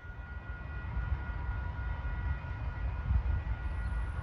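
Low rumble of a distant approaching train, slowly growing louder, with faint steady tones above it.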